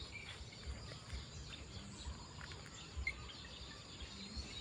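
Outdoor ambience after rain: birds chirping now and then, over a steady high insect hum. Dull low bumps come and go underneath.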